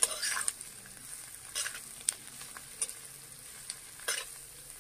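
Mixed vegetables stir-frying on high flame in a kadhai: a steady sizzle, with a metal spatula scraping and clinking against the pan a few times.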